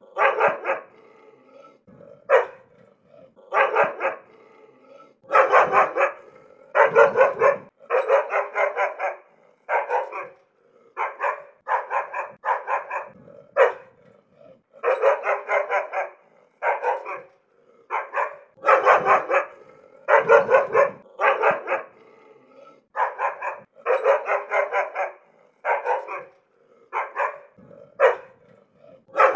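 Dog barking angrily, in runs of several quick barks with short pauses between.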